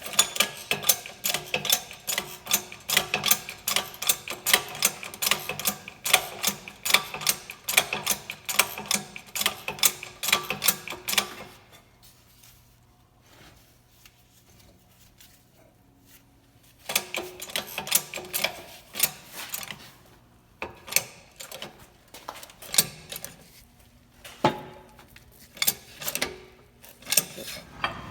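Rapid mechanical clicking and rattling, several clicks a second, that stops at about twelve seconds in, starts again about five seconds later, and then goes on in shorter runs and single clicks.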